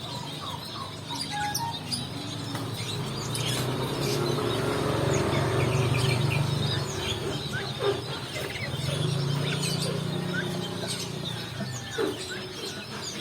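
Many short high bird chirps and calls throughout, over a low droning hum that swells twice.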